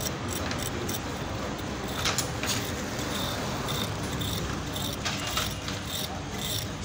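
Steel wire brush scrubbing the ring terminal of a small electrical wire, giving it a light polish so it carries current well. It comes as short scratchy strokes, the clearest about two seconds in and again about five seconds in.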